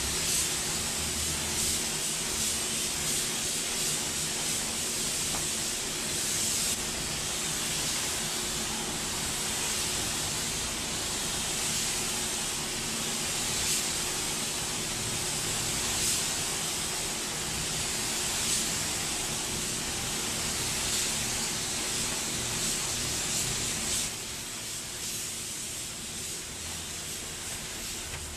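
Astro Euro HE gravity-feed paint spray gun hissing steadily as it sprays blue basecoat onto a truck's body panels, with a steady low hum underneath. The hiss drops a little near the end.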